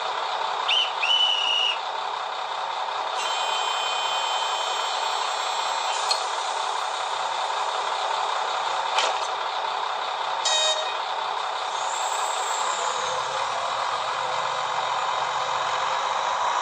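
ZIMO sound decoder in a TT-scale class 842 diesel railcar model playing a diesel engine running steadily through the model's small speaker. Its effects sound over the engine: short gliding tones near the start, a held chord-like tone for about three seconds, a few sharp clicks, and a high tone that rises and falls near the end.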